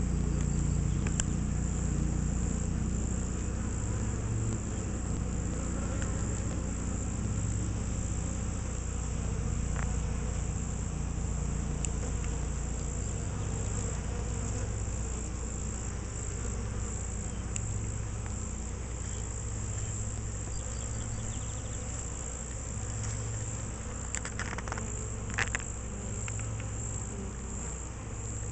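Steady buzzing hum of a crowd of honeybees at a hive entrance, many wings beating at once, with a few faint ticks near the end.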